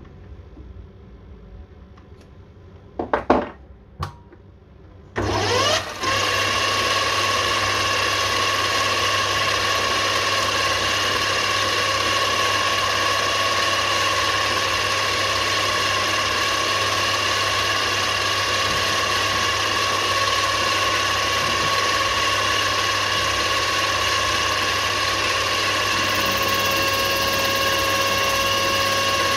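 Mini lathe starting up after a couple of knocks: the motor spins up with a brief rising whine about five seconds in, then runs steadily with a high whine over a low hum. Near the end a further steady tone joins in.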